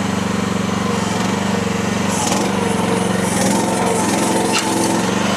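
Small engine of a Chinese mini skid steer running steadily. A wavering higher tone rises over it in the middle, and there is a single sharp click about four and a half seconds in.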